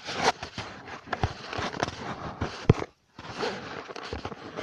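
Irregular rustling, scraping and light knocks right at the microphone, typical of a phone camera being handled and rubbed close to the body.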